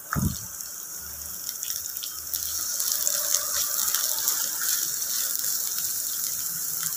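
A soft thump as sliced carrots are tipped into the hot pan, then a steady sizzle of vegetables frying in oil in a non-stick pan, getting louder about two seconds in, with light scraping and ticking from a spatula stirring them.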